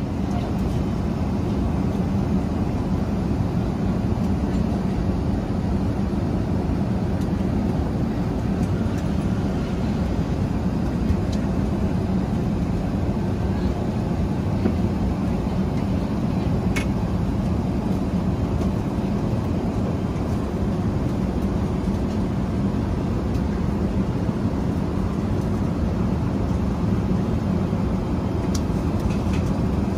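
Steady in-flight cabin noise of an Airbus A380-800: a deep, even rush of airflow and engine noise that holds at one level throughout.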